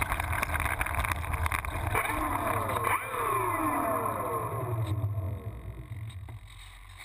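Electric motor and propeller of a radio-controlled model plane winding down in falling whines as the plane rolls out over grass, with a low rumble from the wheels and airframe. The sound fades away over the last couple of seconds as the plane comes to rest.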